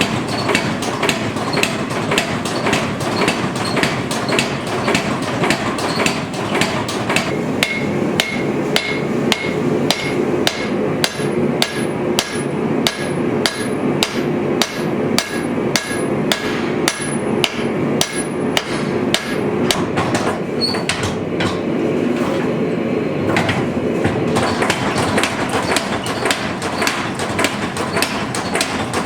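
Hammer blows on leaf spring steel on an anvil, forging the blade, struck at an even pace of about two to three a second with a short metallic ring on each. The strikes pause for a few seconds a little past two-thirds through, then resume. A steady rushing noise runs underneath.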